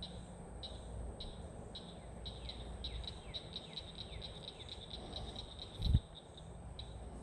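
A frog calling: a series of sharp clicks that speeds up from about two to five or six a second and then slows again. A short low puff of breath hits the microphone about six seconds in.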